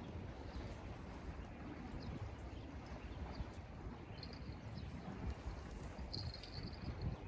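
Wind rumbling on the microphone outdoors, with a couple of brief high chirps about four and six seconds in.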